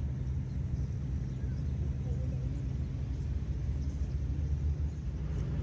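Steady low rumble of open-air background noise, with no distinct event standing out.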